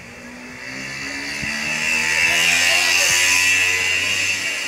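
A motor vehicle driving past close by, its engine and tyre noise growing louder from about a second in and easing off near the end.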